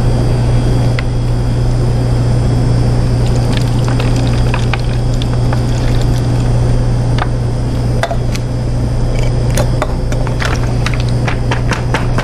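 Water poured from a sample bottle into a Quanti-Tray, over a loud steady low machine hum. Near the end comes a run of light taps and clicks as the tray is tapped to free bubbles from its wells.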